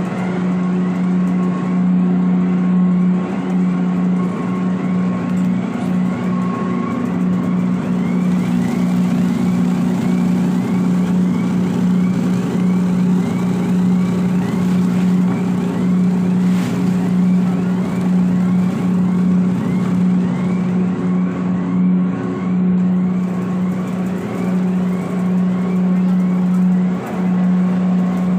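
Charcoal grinding machine running steadily: a loud, even hum with light, regular ticking over it.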